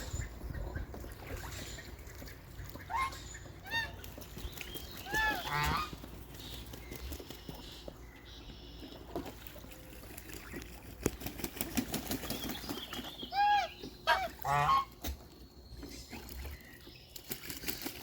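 Birds calling: short, pitched calls that come in clusters about three, five and thirteen to fifteen seconds in, over a faint steady background.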